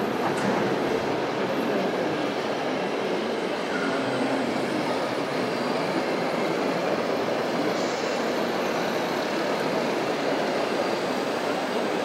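Steady whirring rumble of a radio-controlled model dump truck's electric drive and gearbox as it rolls slowly under load.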